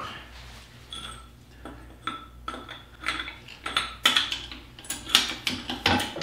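Hydraulic bottle jack under a heavy surface grinder being pumped with its steel handle: quick metal clicks and clinks several times a second, starting about three seconds in, as the machine is raised. Before that, a few scattered knocks as a wooden block is set in place.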